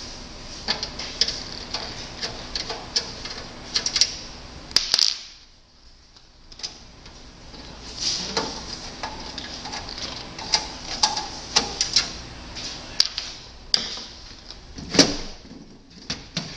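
Irregular clicks and knocks of tools and sheet-metal parts being handled as a desktop computer tower's case is opened, with a louder knock near the end.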